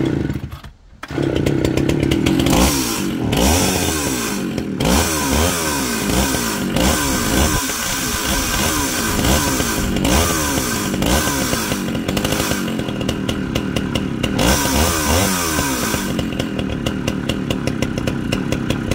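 Vintage Echo-built two-stroke chainsaw, a twin of the Echo CS-500VL, catching on a pull of the starter rope about a second in and then running, revved up and down again and again.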